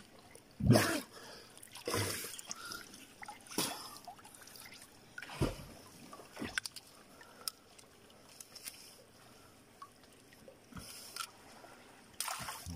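River water splashing and sloshing around a person wading chest-deep and handling a speargun and a speared fish: a handful of irregular splashes, the loudest about a second in.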